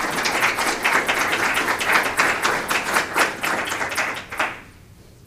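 Audience applauding, a dense patter of many hands that dies away about four and a half seconds in.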